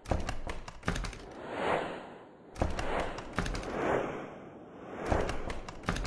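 Repeated whooshing sound effects that swell and fade about once a second, with clusters of sharp clicks and taps between them.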